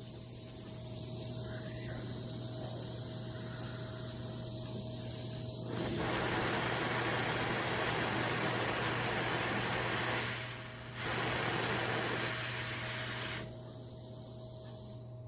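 Butane torch flame hissing steadily. It gets louder about six seconds in, dips briefly past the ten-second mark, then is loud again before dropping back near the end.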